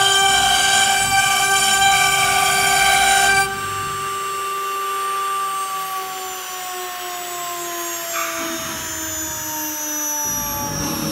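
CNC router spindle whining at speed while its bit engraves a board, with the rasp of the cut over it. A few seconds in, the cutting noise stops and the whine falls slowly and steadily in pitch as the spindle slows.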